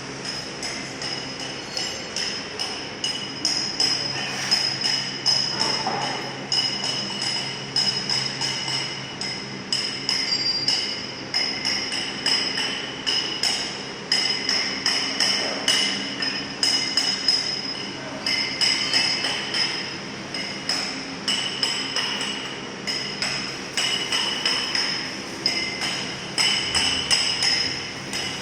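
Rapid, irregular metallic clanking, several strikes a second, each ringing at the same high pitches, over a steady machine hum.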